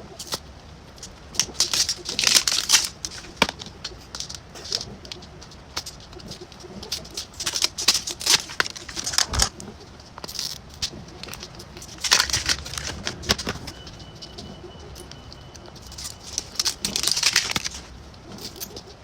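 Hands unwrapping a miniature toy set, with small plastic packaging crinkling in repeated bursts and hard little plastic pieces clicking and tapping.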